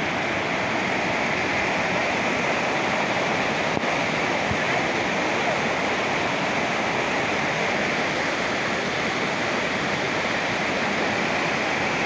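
Mountain waterfall cascading over rocks: a steady, unbroken rush of falling water.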